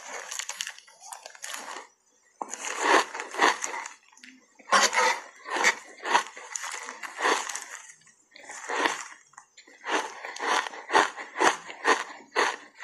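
Refrozen ice coated in matcha powder being bitten and chewed right at the mouth, close to a clip-on microphone: loud crunches in groups with short pauses between them. From about ten seconds in the crunches come quickly, several a second, as the chewing speeds up.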